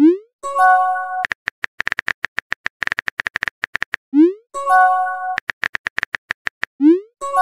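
Phone texting sound effects repeating three times: a quick run of keyboard taps, a short rising swoosh as a message is sent, then a notification chime of a few notes held for about half a second.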